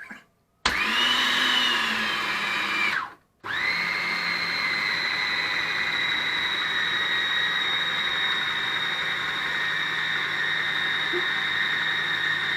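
Electric blender motor running on cookie dough. It spins up with a rising whine about a second in, cuts out for a moment near three seconds, then starts again and runs steadily.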